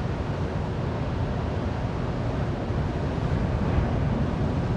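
Wind blowing across the microphone, a steady low buffeting noise, over the wash of ocean surf breaking below.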